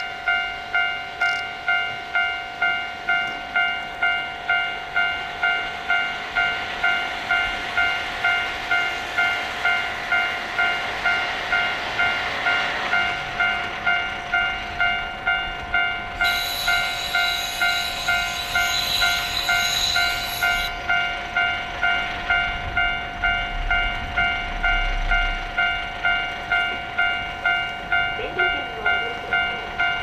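Railway level-crossing warning bell ringing steadily, a bit over once a second, as a KiHa 40 diesel railcar rolls in and stops. The railcar's noise builds to a peak about 12 seconds in, and a hiss starts about 16 seconds in and lasts some five seconds as the railcar stands.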